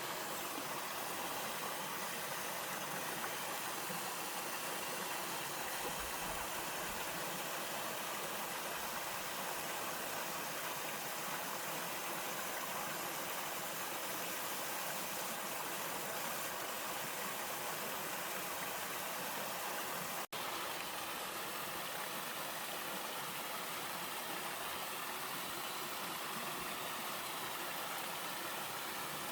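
Waterfall in a mountain stream, water pouring and rushing steadily, with a momentary dropout about two-thirds of the way through.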